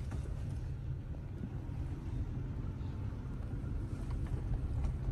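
Steady low rumble of a vehicle running, with a faint hiss above it.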